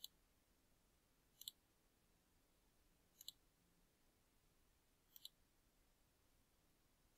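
Computer mouse button clicked four times, about every two seconds, each a quick double tick of press and release, with near silence between.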